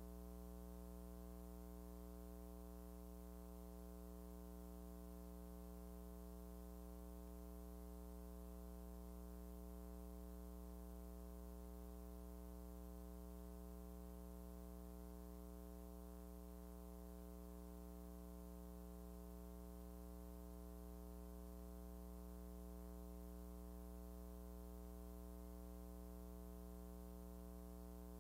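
Faint, steady electrical hum with a stack of overtones that never changes. The footage itself has no sound of its own.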